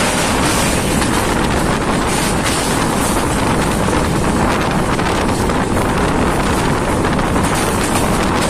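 Loud, steady wind rushing over the microphone, mixed with the running noise of a moving passenger train.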